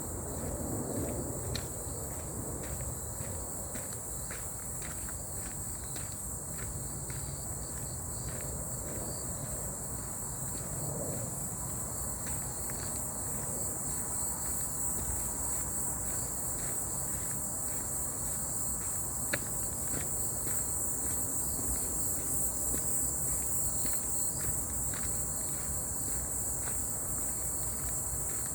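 Footsteps walking steadily along a forest path under a constant high-pitched chorus of insects.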